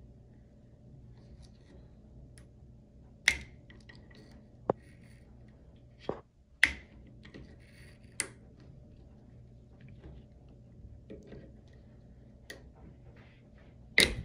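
Small flathead screwdriver and needle-nose pliers working a plastic cartridge sleeve out of an Air Lift Performance valve manifold port, giving about half a dozen sharp, irregularly spaced metal-on-plastic clicks and taps. The loudest click comes just before the end, as the pliers grab the sleeve.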